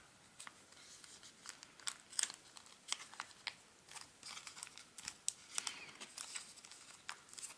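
Origami paper crinkling and rustling in the fingers as it is pinched, opened and creased: a faint string of irregular short crackles.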